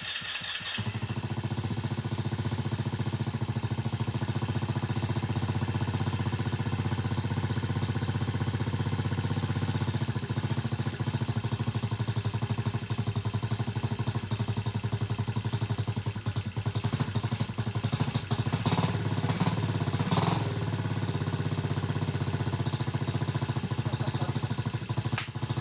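TaoTao 110cc ATV's single-cylinder four-stroke engine cranking on the electric starter, catching within the first second, then idling steadily on choke. It is idling a little high.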